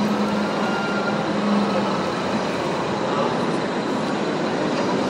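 Steady truck-engine sound from a radio-controlled model semi-truck, over the continuous noise of a busy exhibition hall.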